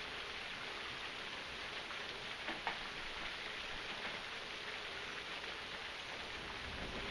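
Steady rain falling, an even hiss, with a couple of sharper drops about two and a half seconds in.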